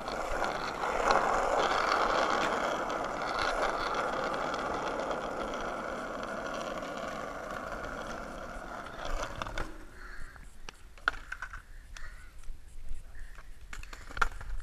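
Skateboard wheels rolling on asphalt, a steady hiss that stops about ten seconds in, followed by a few sharp knocks, the loudest near the end.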